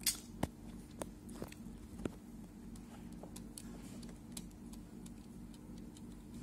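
Several light clicks and taps, most of them in the first two seconds, over a steady low hum.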